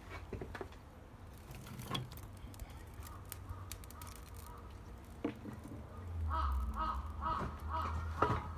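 Wood fire crackling with scattered sharp pops. About six seconds in, a bird calls in a quick run of about six notes, roughly three a second.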